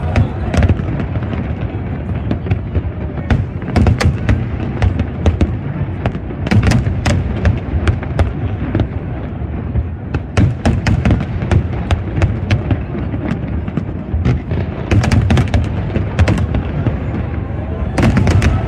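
Large aerial fireworks display: many sharp bangs and cracks in quick succession over a continuous low rumble of bursting shells.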